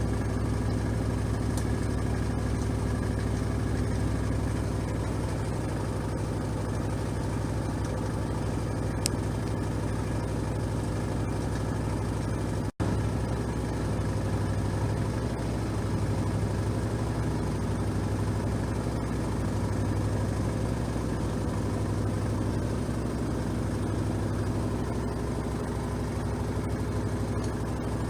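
LG 6.5 kg washing machine spinning its drum at a steady speed: an even motor and drum hum with a low throb that swells and fades about every two seconds.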